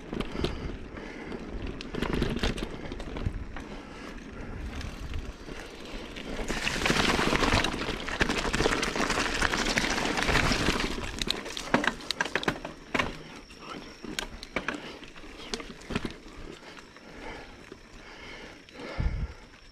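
Mountain bike rolling over a dirt and rock forest trail: tyres crunching on the ground, with frequent rattling clicks and knocks from the bike over bumps. The tyre noise grows louder for a few seconds over a rockier stretch about a third of the way in.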